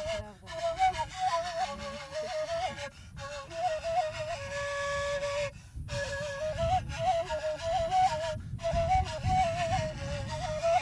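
Solo flute playing a breathy, ornamented melody in phrases broken by four short pauses, with one long held note near the middle, over a low rumble.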